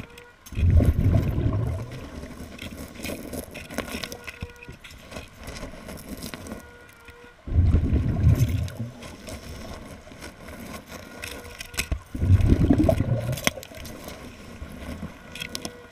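A scuba diver's regulator underwater: three loud, low bubbling rushes of exhaled air, each about a second and a half long, spaced about five seconds apart with the breaths, over a quieter wash of water noise.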